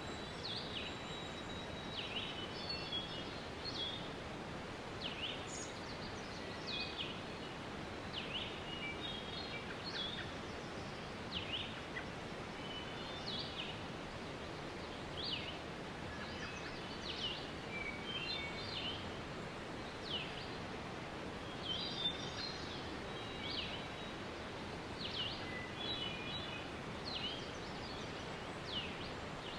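Waterfall rushing steadily, with birds calling over it: a sweeping call repeated about every two seconds and clusters of short chirps.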